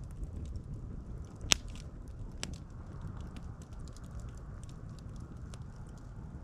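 Wood campfire crackling, with many small snaps and one loud sharp pop about a second and a half in, followed by a smaller pop about a second later.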